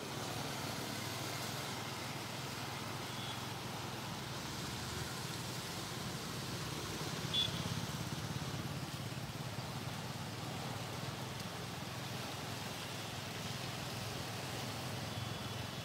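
Steady rushing noise of a fast-flowing flooded river under a low, steady vehicle-engine hum, with one short click about halfway through.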